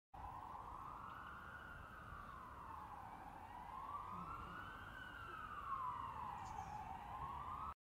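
An emergency vehicle's siren in a slow wail, its pitch rising and falling in a cycle of about three and a half seconds, over a low background rumble.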